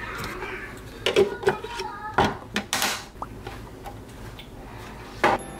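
Irregular sharp knocks and clicks of handled objects: a quick cluster between about one and three seconds in and one loud knock near the end, with faint voice-like sounds in between.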